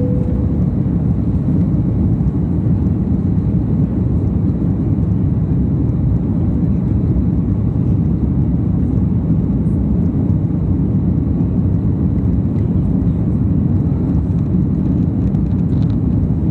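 Airliner's jet engines and rushing air heard from inside the cabin during the climb after takeoff: a loud, steady, deep noise.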